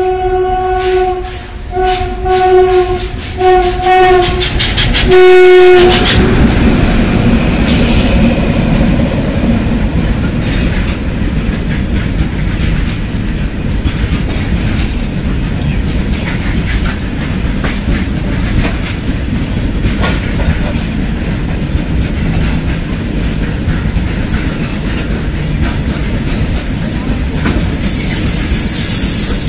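An electric locomotive's horn sounds in a run of short blasts, the last one the longest and loudest, ending about six seconds in. Then a freight train of covered wagons rolls past close by with a steady rumble and a clatter of wheels over rail joints. A thin, high wheel squeal comes in near the end.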